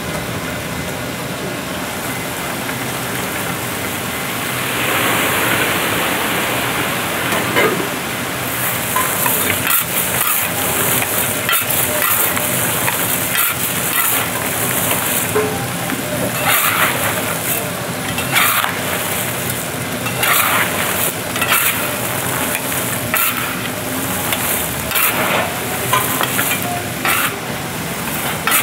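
Chestnuts and hot black roasting stones churning in a motor-stirred iron roasting pan, sizzling as mizuame syrup is added, with a louder hiss from about five seconds in. From about eight seconds in there are repeated scraping swishes of a scoop in the pan.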